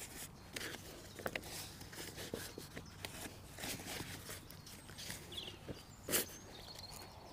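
A lightweight folding camping chair being handled: faint scattered clicks, taps and rustling, with one louder knock about six seconds in.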